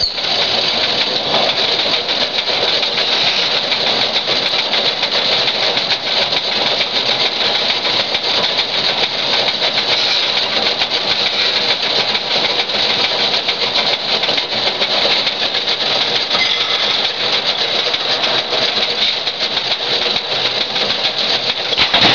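Motorized 4-foot sheet-metal guillotine shear running, its electric motor and belt-driven flywheel turning with a steady, fast rattle.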